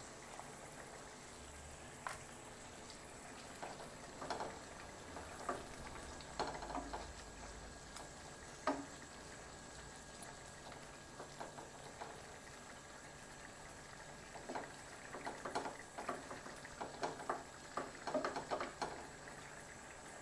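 Thick fish-head and lentil curry simmering in a frying pan while a wooden spatula stirs it: soft bubbling with scattered wet taps and squelches, busiest in two spells, one in the first half and a longer one near the end.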